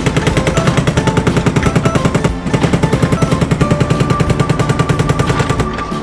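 Jackhammer sound effect: rapid, even hammering that breaks off briefly about two seconds in and stops shortly before the end.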